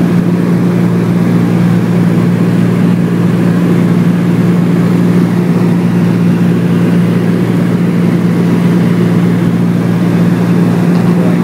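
Steady, loud engine drone of a sightseeing aircraft, heard from inside the cabin, with a strong constant low hum.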